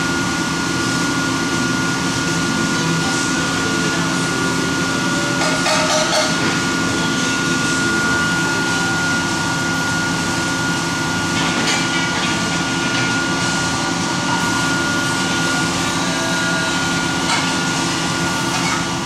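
Steady hiss and hum of a spray booth's ventilation with a compressed-air spray gun spraying coating onto hanging parts. A few short louder bursts of hiss, about six seconds in and again near twelve seconds.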